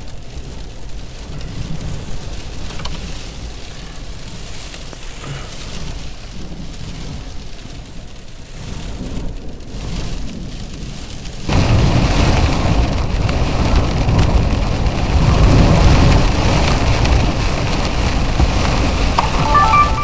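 Rear-flank downdraft wind and rain buffeting and pelting a car, with a low rumble of wind against the body. About halfway through it turns suddenly much louder and harsher.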